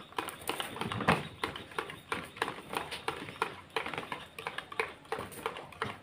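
A metal spoon clinking against the inside of a steel tumbler as a drink is stirred: a quick, uneven run of light clinks, one sharper about a second in.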